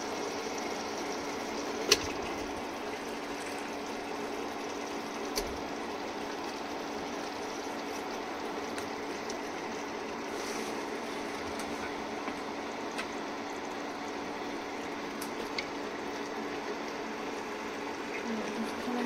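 Mutton pieces sizzling in hot oil with fried onions: a steady frying hiss, broken by a few sharp clicks, over a faint low hum.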